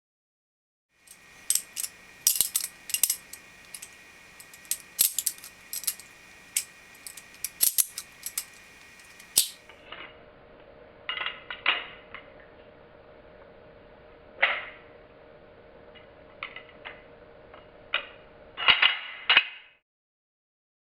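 Balisong (butterfly knife) being flipped: irregular sharp metallic clicks and clacks as the handles and blade knock together, over a faint steady hum. About ten seconds in the hum drops lower and the clicks sound duller.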